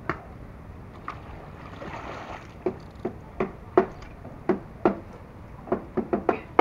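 Irregular sharp knocks and taps over a faint wash of water while a large fish is played on a heavily bent rod and reel.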